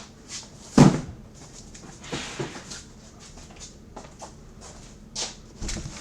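Cardboard cases being shifted off a stack and handled: a loud thump about a second in, then scattered knocks, scrapes and rustling.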